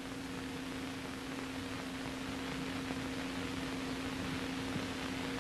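Steady low hum with hiss: background noise of an old film soundtrack.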